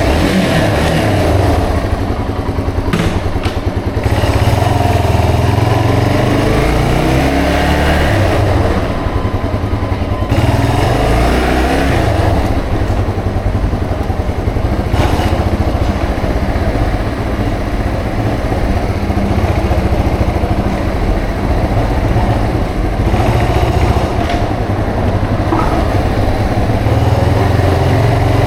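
Yamaha TW225's air-cooled single-cylinder four-stroke engine running under way, with a steady low pulse; its note rises and falls several times as the bike speeds up and slows.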